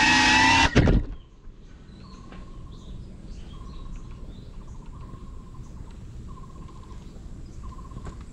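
Background music cuts off abruptly just under a second in. It leaves outdoor ambience: a low, steady rumble with short bird chirps every second or so.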